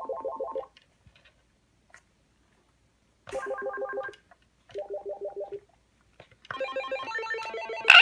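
Small button-played synthesizer sounding rapid staccato electronic notes, about nine a second, in short runs with silent gaps between them, ending in a brief loud falling squeal.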